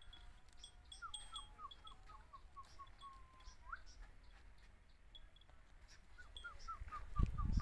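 A bird calling in the background: a run of short, falling whistled notes, about four a second, ending in a longer note that rises, then a second run a few seconds later. A low rumbling noise starts near the end.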